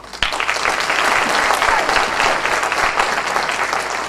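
Audience applauding: clapping breaks out a moment in and holds steady.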